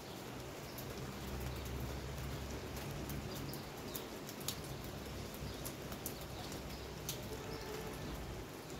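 Rain falling outside a window: a steady hiss with many sharp drips tapping on nearby surfaces, one louder tap about halfway through. A low rumble sits underneath for a few seconds early in the stretch.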